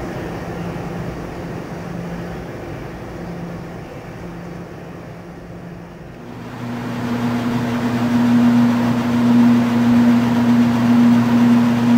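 Steady electrical hum of laundromat machines running, which grows louder about six seconds in and then holds even.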